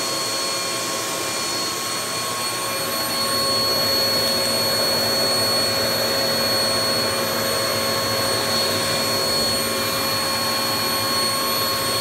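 Vax Dynamo Power Pet bagless upright vacuum cleaner running, drawing air through its hose to pick up crumbs from a hard floor. It makes a steady, loud rush of air with a constant motor whine.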